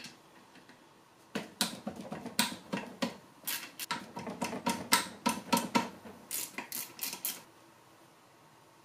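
Steel parts of a Honda K20Z1 manual transmission's gear assembly clicking and clinking as they are worked loose by hand: a rapid, irregular run of light metallic clicks, some ringing briefly, starting about a second and a half in and stopping near the end.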